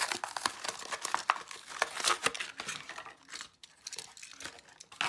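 Cardboard backing and plastic blister packaging of a diecast car being torn and crinkled open by hand, a rapid run of crackles and rips that thins out after about three seconds.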